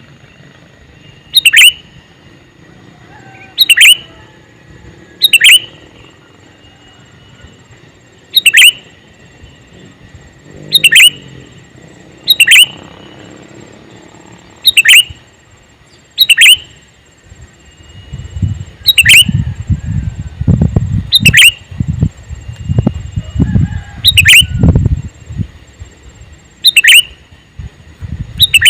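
Male sooty-headed bulbul giving a short, sharp, falling call over and over, about once every two seconds. Low muffled thumps come and go through the middle of the stretch.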